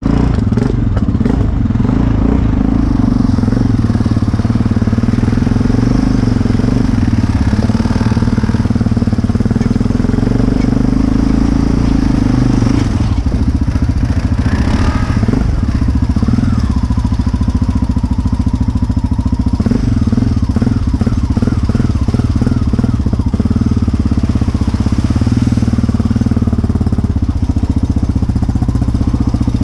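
Sport ATV engine running continuously while riding trails, heard close up from on board the quad, its note rising and falling with the throttle.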